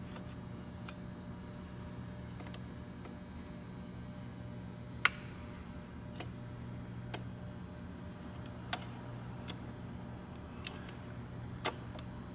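Occasional sharp metallic clicks and taps of hand tools working on the gearbox's bolts as they are loosened, the loudest about five seconds in, over a steady low hum.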